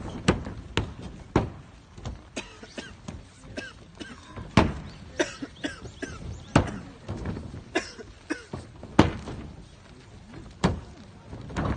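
Aikido breakfalls and throws on padded mats over a raised wooden stage: an irregular string of sharp slaps and thuds as bodies and hands strike the mat, several of them loud.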